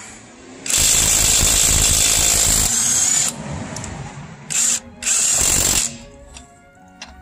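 Cordless 20 V, 800 Nm 1/2-inch impact wrench hammering on a car wheel's lug nut, loud. One long burst starts about a second in and runs about two seconds, then two short bursts follow near the middle.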